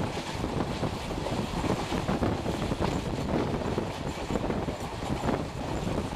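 Wind rushing over the microphone out of a moving passenger train's open window, over the train's running noise, a steady gusting rumble with no clear rhythm.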